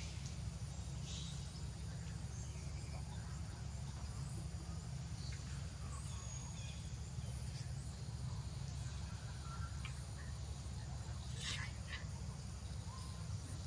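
Outdoor ambience: a steady low rumble with a few faint, brief chirps and calls scattered through it, one a little louder near the end.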